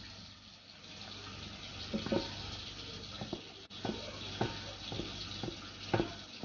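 Sugar-and-water syrup boiling in a metal pot, a steady bubbling hiss, at the stage where it is starting to colour into caramel. A wooden spoon stirs it, knocking against the pot about ten times from about two seconds in.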